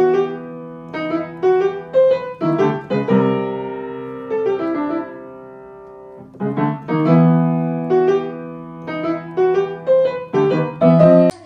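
Piano music: a melody of struck notes over held chords, with one long chord left to fade away about halfway through.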